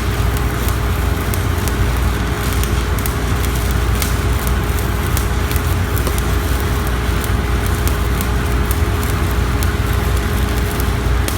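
Stick-welding arc from a #127 extra-low-hydrogen electrode burning continuously: a steady crackling with many sharp pops, over a steady low hum.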